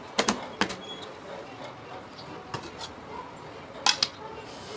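A few light clicks, then about four seconds in one sharp metal clank with a short ring: a large aluminium pot holding a wire stand being set down on the stove.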